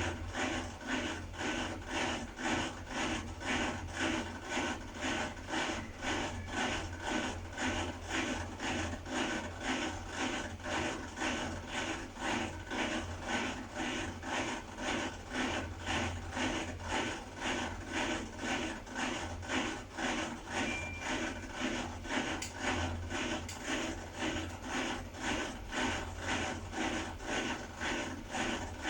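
Beko WDX8543130W washer-dryer running, with a rhythmic rubbing, rasping scrape that repeats about three times every two seconds over a low hum. This is the abnormal noise the owner reports from the machine, which is also failing to dry the laundry.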